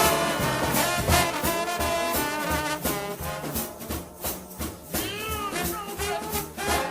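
Live gospel music: voices singing over a band with a steady percussive beat.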